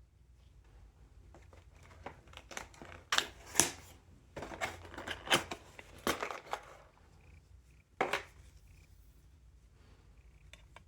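Packaging being opened and handled: a few seconds of crinkling and tearing with sharp clicks, then one more crinkle about eight seconds in.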